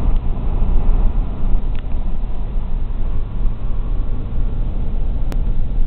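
Heavy wind rumbling and buffeting on the microphone in the open bed of a truck moving at highway speed, with one sharp click about five seconds in.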